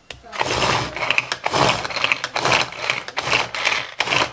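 Hand-powered pull-cord food chopper pulled over and over, about two pulls a second, dicing apple pieces finely.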